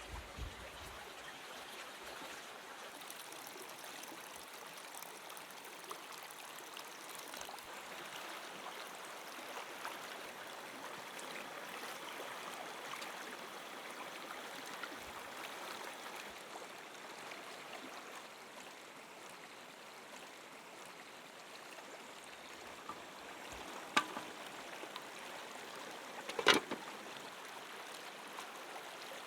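A river stream flowing steadily, an even rush of water. A sharp click sounds near the end, then a louder knock about two and a half seconds later.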